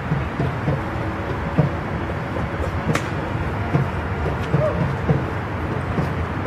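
Steady outdoor city background noise, a low rumble like distant traffic, with scattered low thumps and a single sharp click about three seconds in.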